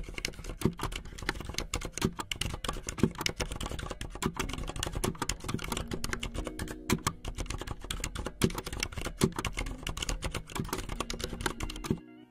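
Keyboard typing sound effect: rapid, irregular key clicks that stop abruptly near the end, laid over text being typed onto the screen.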